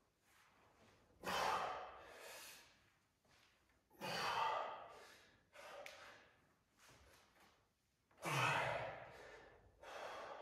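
A man breathing hard with effort while hanging under a load before a weighted pull-up: three loud breaths about three to four seconds apart, each trailing off into quieter ones.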